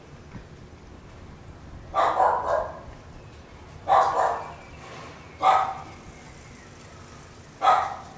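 Four loud bark-like animal calls, each under a second long, coming about every two seconds.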